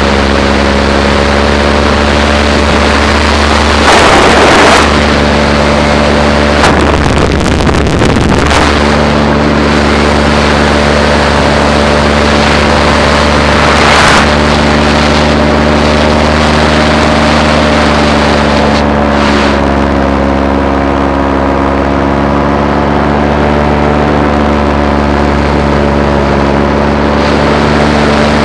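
Paramotor engine running steadily at a constant pitch, with a few short bursts of rushing noise breaking in, the longest about seven seconds in.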